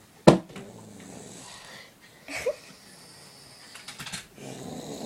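A sleeping person snoring, with a short snort about two and a half seconds in and a longer snore starting near the end. A sharp click about a third of a second in is the loudest sound.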